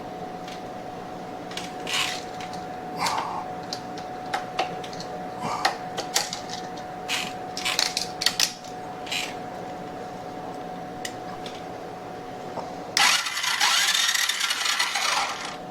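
Scattered clicks and clinks of small parts and tools being handled over a faint steady hum. Near the end comes about two and a half seconds of harsh rasping as the Wolf Striker mini bike's engine is turned over and does not fire; it has no spark at the plug.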